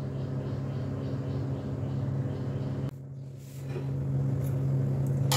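A steady low machine hum. It dips briefly about three seconds in, then carries on.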